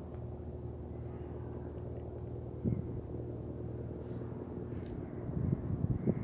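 A steady low mechanical hum, with a low bump about two and a half seconds in and a run of rumbling low bumps near the end.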